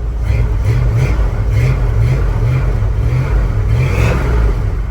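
Ford 360 cubic-inch V8 in a 1976 F-150 running unevenly just after starting, its note rising and falling over and over as it struggles to settle into an idle. The carburetor is short of fuel after the truck sat unused for about two years.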